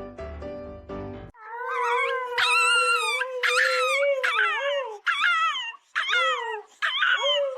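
Piano music ends about a second in; then a dog howls and whines in long, wavering cries that slide up and down in pitch, broken by a few short pauses.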